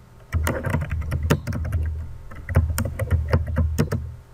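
Typing on a computer keyboard: rapid key clicks with low thuds, in two quick runs with a short pause between them.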